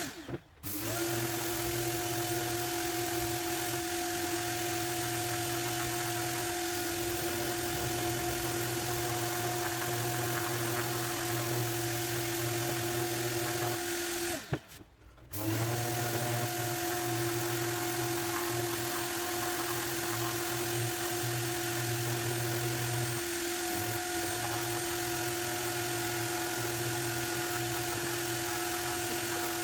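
Carts & Millie Prepmate 2 150mm brushless random orbital sander running with a steady whine and hum. It cuts out abruptly twice, briefly just after the start and for about a second near the middle, then runs on.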